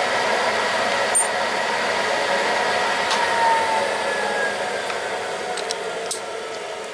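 A steady machine hum that slowly grows quieter, with a few sharp clicks about one, three and six seconds in.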